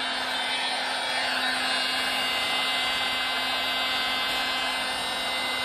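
Milwaukee M18 cordless heat gun running steadily, its fan blowing hot air with a steady whirr and whine.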